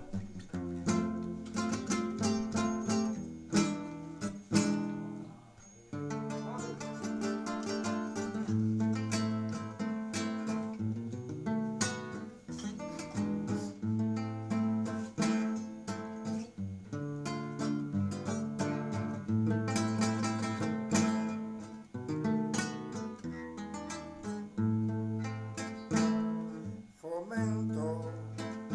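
Instrumental acoustic guitar music, plucked and strummed over a moving bass line.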